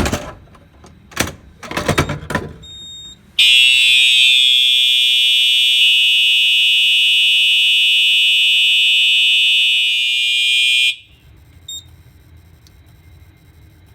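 A few sharp clacks as the pull station is operated. About three seconds in, a Simplex TrueAlert 4903-9418 horn strobe sounds a loud, steady, buzzy continuous horn tone. It stops abruptly after about seven and a half seconds.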